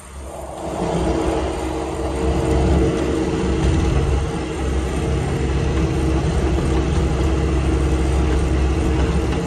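Skid-steer loader's engine running under throttle as the machine drives, heard from inside the cab; it rises about a second in and then holds steady.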